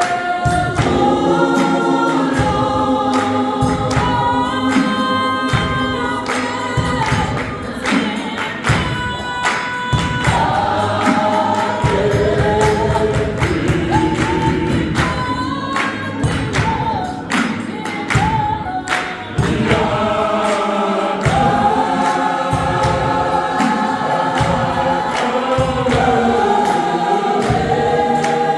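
South African gospel choir singing in parts, with a steady beat of hand claps.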